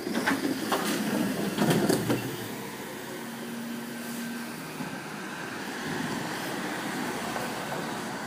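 Refuse-collection lorry running, with a few sharp clattering knocks in the first two seconds and a short steady hum about three seconds in.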